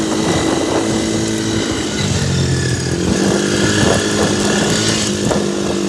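Four-wheeler (ATV) engine running steadily while being ridden, its note shifting about two seconds in.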